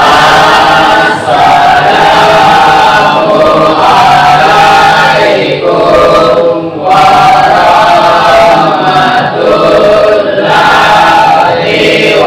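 A class of schoolchildren chanting together in unison, loudly, in drawn-out phrases with short pauses between them.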